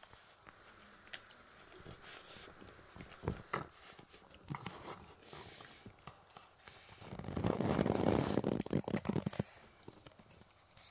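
Two-month-old poodle puppy, its teeth just coming in, gnawing and crunching on a chicken foot: scattered small crunches and clicks, with a louder stretch of dense crunching and rustling about two-thirds of the way through.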